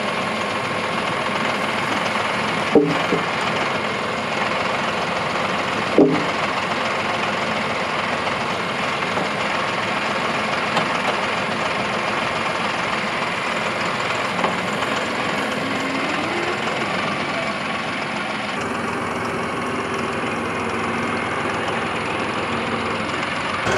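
A farm tractor's engine runs steadily, with two sharp knocks about three seconds apart near the start.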